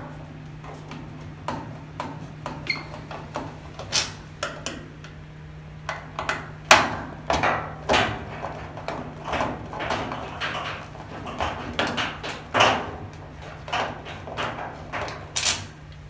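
Screwdriver working the screws of a Whirlpool dryer's door switch, giving irregular clicks and knocks against the door-opening panel as the switch is taken out. A steady low hum runs underneath.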